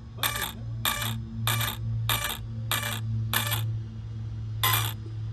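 Steering servo of an ARRMA Big Rock 6S RC truck being driven back and forth, seven short whirring bursts about two-thirds of a second apart with a longer gap before the last. A steady low hum from the powered-up electronics' cooling fans runs under them.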